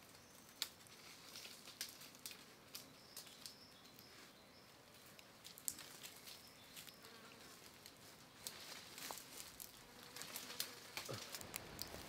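Faint, irregular small clicks and ticks, a few a second, growing busier near the end.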